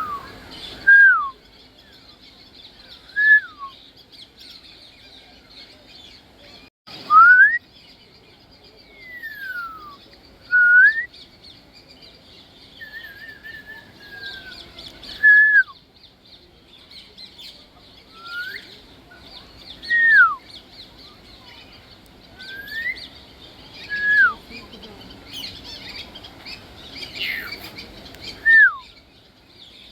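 African grey parrot whistling: a string of short clear whistles every second or two, each a single note that slides up or down, with one wavering, warbled whistle about halfway through.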